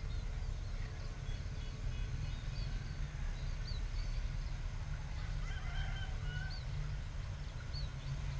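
Low, steady rumble of a diesel locomotive approaching from a distance, with birds chirping in short high notes. A short honking call sounds about six seconds in.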